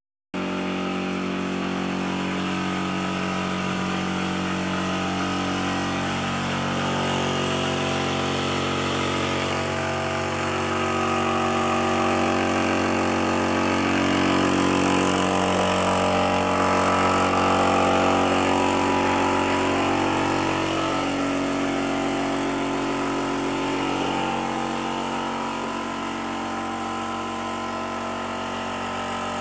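A motor running steadily, a hum of several tones that shift in pitch a few times and grow louder through the middle.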